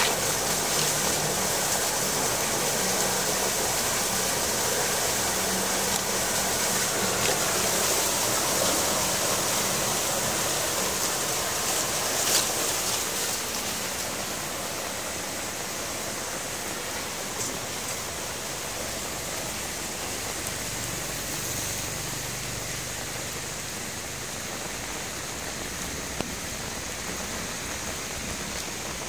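Muddy rainwater gushing and splashing through a roadside culvert grate as leaves and debris are raked off it, with rain falling. The rushing eases off about halfway through, and there is one short sharp knock near the middle.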